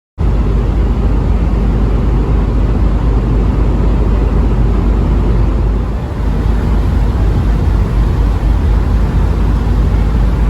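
Steady, loud rumble of a running vehicle, deepest in the bass, cutting in suddenly just after the start.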